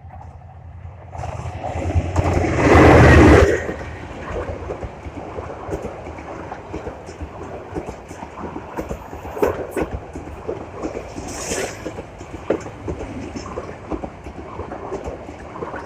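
Bangladesh Railway train passing close by. It builds to its loudest about three seconds in, then the cars' wheels clatter over the rail joints as they roll past.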